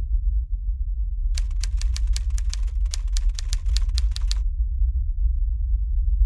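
A quick run of typewriter keystroke clicks, about six or seven a second, lasting about three seconds and starting a second or so in, over a steady low rumble.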